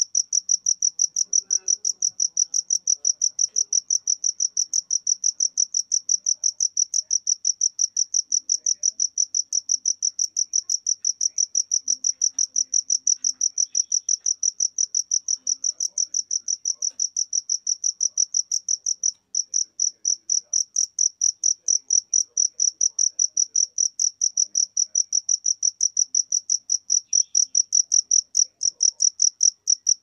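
Cricket chirping: a steady, high-pitched trill of rapid, evenly spaced pulses, with a brief pause about two-thirds of the way through.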